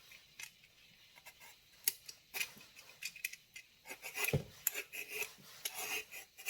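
A blade peeling the skin off a hard, unripe green mango, in short irregular scraping and slicing strokes with small clicks.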